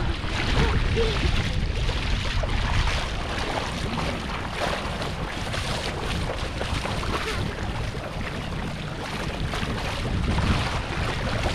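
Feet splashing through shallow water while wading, with a steady rumble of wind on the microphone.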